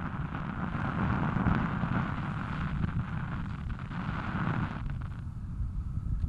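Wind buffeting the microphone of a helmet-mounted action camera on a moving bicycle: a continuous rumble, with a rushing noise over it that fades out about four and a half seconds in.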